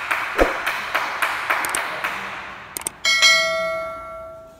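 Subscribe-button sound effect: about three seconds of hiss with rapid small ticks, then two quick clicks and a bell ding that rings out and fades away.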